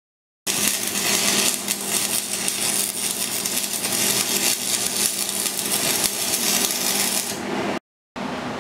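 Stick welding arc crackling and sputtering steadily on steel, with a steady hum under it, as a plate is welded between the leg bolts inside a table's steel pedestal base. It breaks off briefly near the end.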